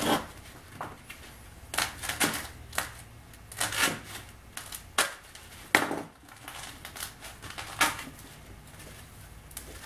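A knife slicing and tearing through blocks of packing foam, in a series of short, scratchy, crunching strokes at irregular intervals.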